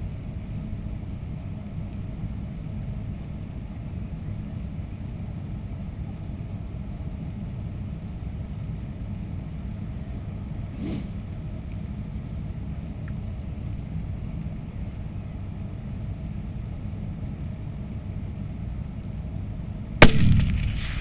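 A steady low rumble, then near the end a single rifle shot: one sharp, very loud crack that dies away over about a second.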